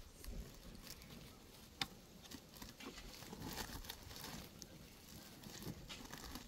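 Faint rustling with scattered light clicks and taps, one sharper click about two seconds in.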